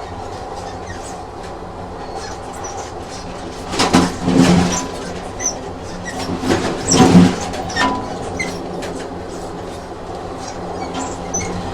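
Train sound effect: a train running with a steady hum and scattered light clicks, and two louder stretches, each a run of clicks, about four and seven seconds in.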